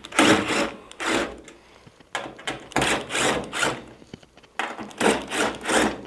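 Cordless drill-driver running in about six short bursts, each about half a second long, as it backs screws out of the tumble dryer's steel back panel.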